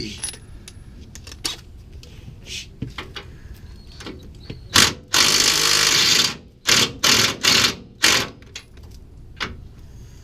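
Power tool run on the truck's suspension: a burst of about a second, then three or four short trigger pulls, with small metal clicks before.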